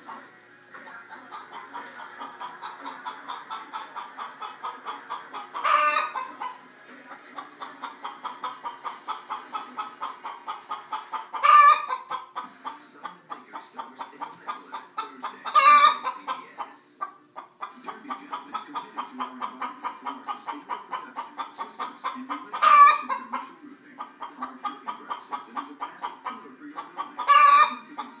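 Hen clucking in a steady run of short clucks, about four a second, broken five times by a louder, drawn-out squawk.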